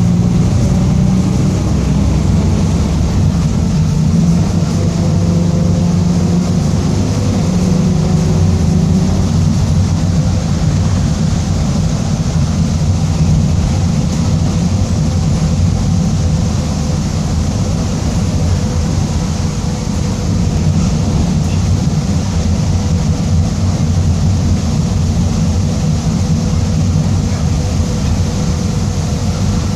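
Mercedes-Benz OF-1722M bus under way, its diesel engine running with a steady growl from the differential. A faint whine climbs in pitch during the first ten seconds or so, then holds steady.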